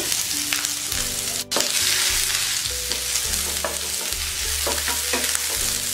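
Sliced onion sizzling in hot oil in a nonstick frying pan as it is stirred: a steady hiss with a few light clicks of the utensil against the pan.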